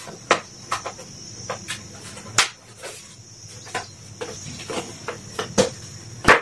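Black plastic welding hand shield being handled and its handle fitted: a string of irregular plastic clicks and knocks, two of them louder, about two seconds in and near the end. A steady high hiss runs underneath.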